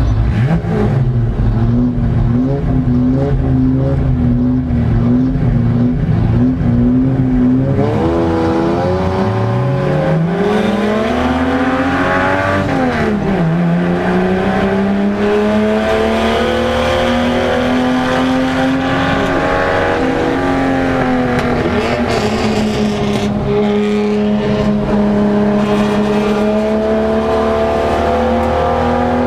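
Saloon race car's engine heard from inside the cabin, held at fairly steady revs with a slight waver. About eight seconds in it dips and then climbs hard, drops sharply at a gear change around thirteen seconds, and then rises slowly through the next gear with another small dip near twenty seconds.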